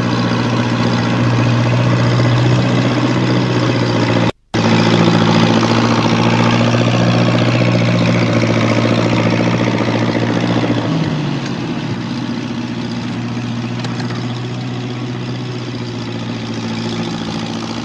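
An engine running steadily. The sound cuts out for about half a second around four seconds in. About eleven seconds in the engine's pitch drops and it runs on a little quieter.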